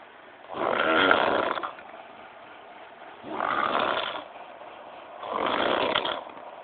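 A sleeping person snoring: three snores, each about a second long, roughly two seconds apart, with quiet breathing gaps between them.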